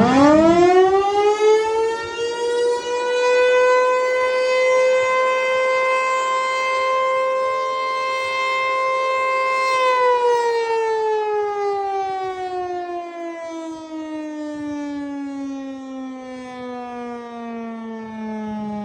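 Federal Signal Eclipse 8 outdoor warning siren sounding its 10-second alert test. It winds up quickly to a steady high tone, holds for about ten seconds, then winds down with the pitch falling steadily.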